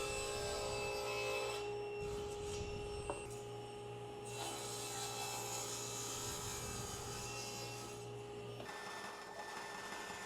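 Thickness planer running with a steady whine and hum as a glued-up walnut panel is fed through to bring it to final thickness; the low hum drops away near the end.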